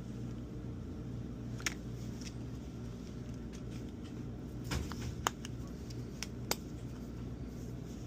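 A few light clicks and taps of small tools and parts being handled during a phone repair, over a steady low electrical hum.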